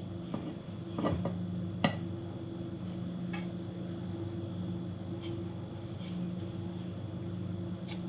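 Light clicks and taps of kitchen utensils, a scattered handful with the sharpest about two seconds in, over a steady low hum.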